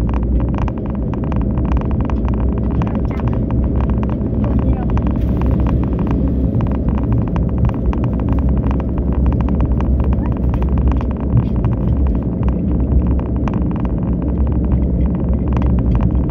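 Steady low rumble of a car's engine and tyres on the road, heard from inside the cabin, with a constant run of small ticks and rattles on top.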